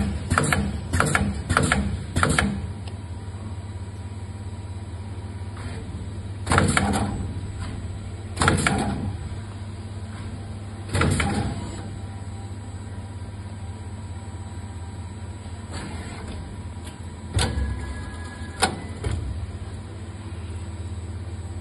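PCB component insertion machine at work: a steady low hum with a quick run of short, sharp mechanical actuations in the first couple of seconds and about five more single ones spread through, from its air-cylinder-driven insertion head.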